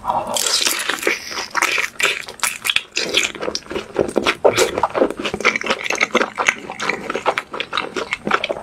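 Close-miked mukbang eating sounds: wet chewing, smacking and crackling as a mouthful of sauced fried chicken is chewed. There are many quick, irregular clicks throughout.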